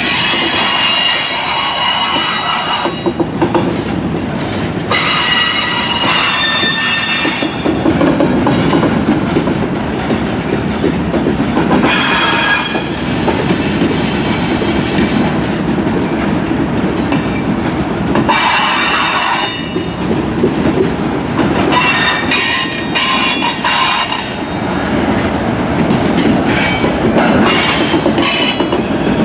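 Freight train's gondola cars rolling past, a steady rumble with high wheel squeals that come and go every few seconds.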